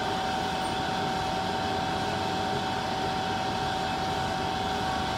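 Steady mechanical hum with a constant high tone, unchanging throughout.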